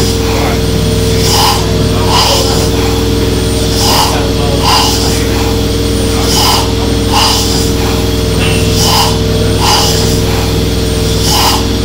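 1870s single-cylinder stationary steam engine running, with a regular beat repeating about once a second over a steady low hum.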